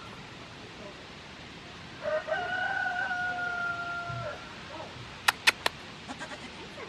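A rooster crowing once: a long held call of about two seconds that falls slightly in pitch at the end. About a second later come three quick, sharp clicks.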